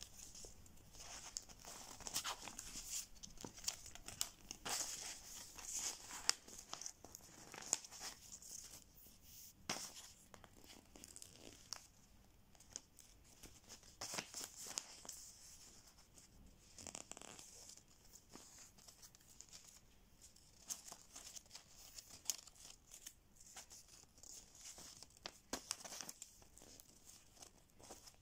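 Paper strips being folded over one another and pressed flat by hand to build a folded paper spring, giving faint, irregular rustling and crinkling with small scratchy clicks of paper.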